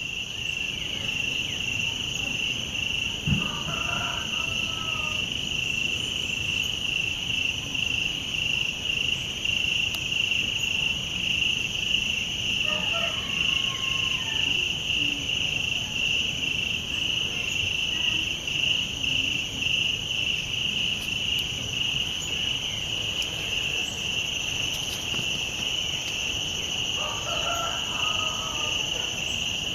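Dense, unbroken chorus of Amazon rainforest insects, a steady high-pitched trill. Three times, small frogs join in with brief bursts of lower calls, and a single soft thump sounds about three seconds in.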